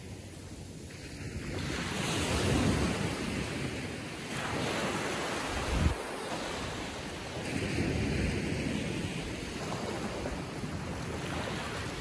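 Small, gentle waves washing up onto a sandy beach in slow swells that rise and fall about three times, with a brief low thump about six seconds in.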